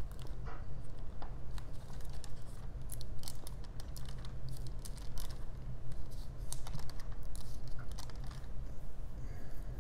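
Thin Bible pages being leafed through by hand: a quick, irregular run of crisp paper rustles and ticks, over a steady low hum.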